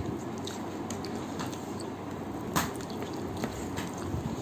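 Eating by hand: fingers squishing and mixing rice with chicken curry on a plate, with scattered small wet clicks, the sharpest about two and a half seconds in.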